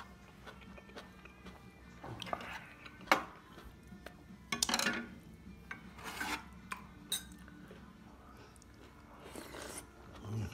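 Metal spoon clinking and scraping against ceramic bowls, with one sharp clink about three seconds in.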